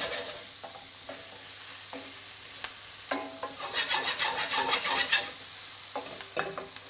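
Chopped onion, courgette and garlic sizzling in hot oil in a stainless steel pan. A wooden spoon stirs and scrapes through them, with a busy spell of stirring lasting about two seconds, starting about three seconds in.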